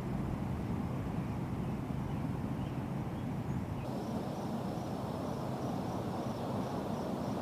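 Steady low rushing rumble of outdoor ambience. About four seconds in, the sound changes as if at a cut, and a faint high steady trill comes in.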